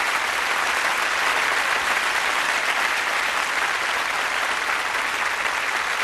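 Applause: many hands clapping steadily, with no change in level.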